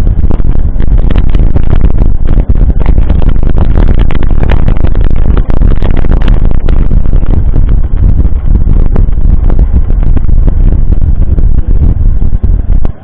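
Loud, steady buffeting and rumble on a mountain-bike ride, with a constant rattling clatter of the bike and its mounted camera over rough trail.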